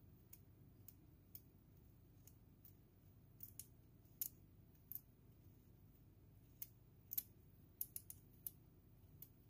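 Small kitchen knife peeling a raw carrot: short crisp scrapes and snicks at irregular intervals, one to three a second, some much louder than others.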